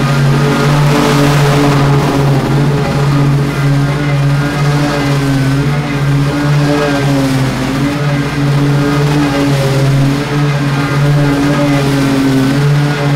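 Small petrol engine of lawn-care equipment running at a steady speed, with a rush of hiss about a second in.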